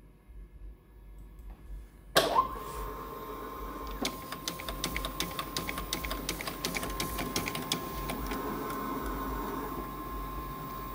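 Inotec Scamax 6x1 production document scanner starting up about two seconds in and feeding a stack of small paper slips: a steady motor whine with a rapid run of clicks as the slips pass through. The clicks stop a few seconds before the end while the motor keeps running.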